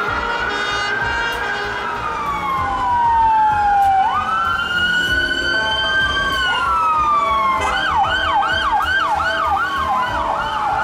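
Emergency vehicle sirens, more than one sounding at once, in slow rising and falling wails. About three-quarters of the way in, one switches to a fast yelp of roughly three sweeps a second.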